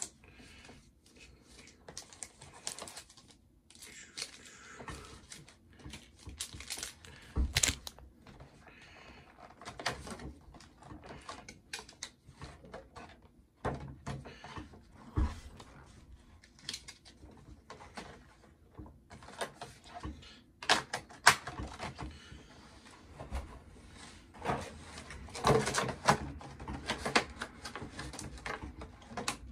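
Irregular rustling, tapping and knocking of cardboard collection boxes and foil Pokémon booster packs being unpacked and set down on a desk, with a few louder knocks.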